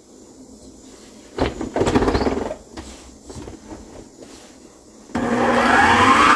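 Knocks and clatter of the stand mixer being handled over its steel bowl, then about five seconds in the mixer's motor switches on with a rising whine as it speeds up, starting to whip cream with sugar.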